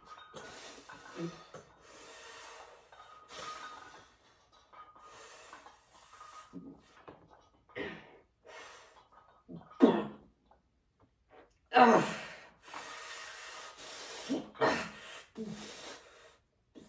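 A man breathing hard through a heavy barbell set: repeated forceful breaths between reps, with two loud straining grunts about ten and twelve seconds in.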